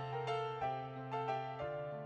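Soft background piano music: a slow melody of single struck notes, each ringing and fading, over a held bass note.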